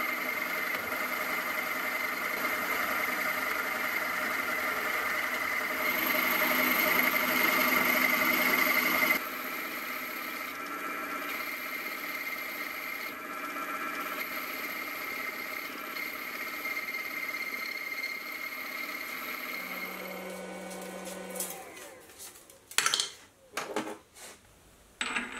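Sieg X2.7L benchtop milling machine's spindle running with a steady motor whine while cutting a hole in a medium tensile steel block. It is louder for a few seconds, then drops suddenly about nine seconds in. Near the end the spindle winds down, followed by a few sharp knocks.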